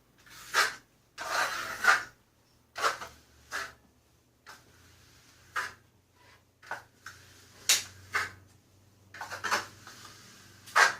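Steel plastering trowel spreading a thick coating across a wall, a dozen or so short scraping strokes at irregular intervals.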